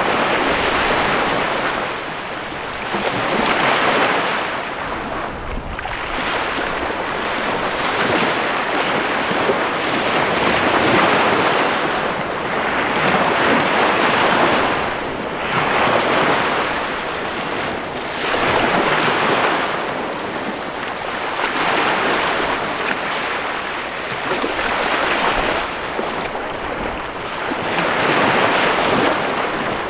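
Small bay waves breaking and washing up a sandy shore, a fresh surge every two to three seconds.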